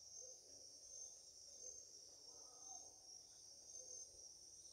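Near silence: room tone with a faint, steady high-pitched hiss.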